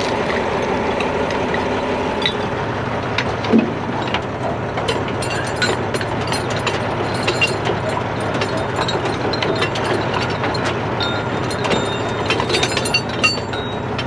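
A heavy-duty wrecker's diesel engine runs steadily. Over it, chain links and metal rigging clink and clank in many quick sharp knocks as chains and hardware are handled at the truck's open side tool compartment, most of them in the second half.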